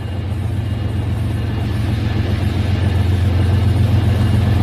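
Toy trains running along plastic track with a steady low rumble that grows gradually louder as they approach.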